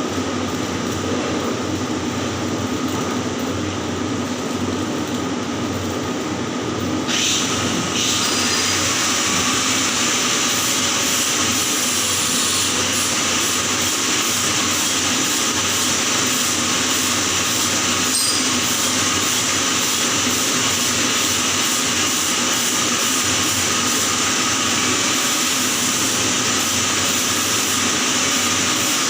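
Electric arc welding on pipe: a steady crackling hiss from the arc that grows louder and brighter about seven seconds in, then holds steady.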